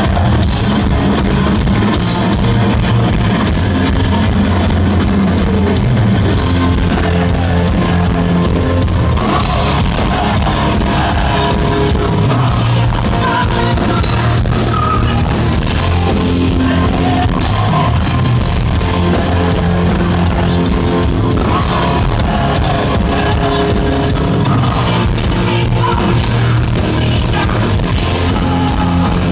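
Heavy metal band playing live: distorted electric guitar, bass guitar and drum kit, loud and continuous.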